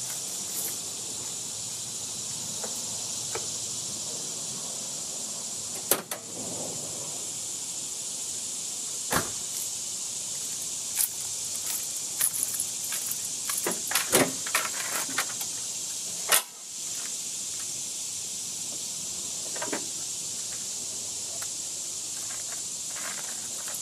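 Pickup truck door and hood being worked by hand: a scattering of sharp clunks and clicks, the loudest about two thirds of the way through, as the hood is released and raised. A steady high hiss runs underneath.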